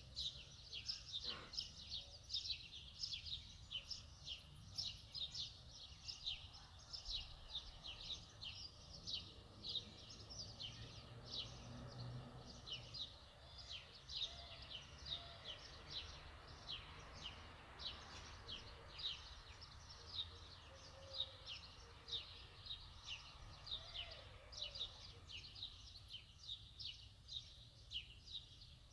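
A small bird chirping over and over, several short high chirps a second without a pause, over a low steady hum.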